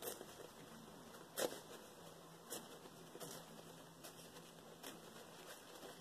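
Tissue paper being peeled by hand from the edges of a decoupaged fabric panel: faint, scattered rustles and crinkles, with a sharper crackle about one and a half seconds in.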